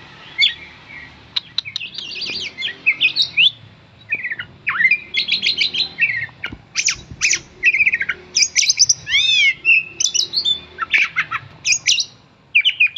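Oriental magpie-robin (kacer) singing hard, in rapid bursts of varied whistles, chirps and slurred rising and falling notes with short pauses between phrases. It is the worked-up, aggressive song that keepers call fighting mode ("ngamuk").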